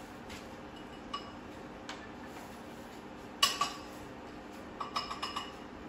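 Kitchen utensils clinking against a bowl and dishes: a few scattered light taps, one sharp louder clink with a brief ring about three and a half seconds in, then a quick run of small clinks near the end.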